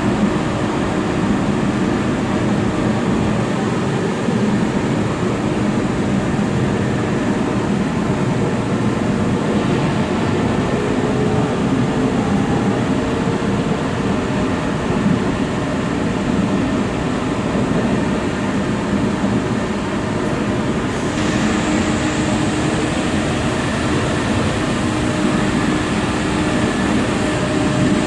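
Taiwan Railway EMU3000 electric multiple unit running at speed, heard in the gangway connection between carriages: a steady, loud running rumble with a low hum. About three quarters of the way through, a hiss grows louder and stays.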